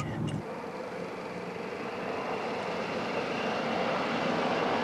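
Car driving along: steady engine and road noise that changes character about half a second in and then grows slowly louder.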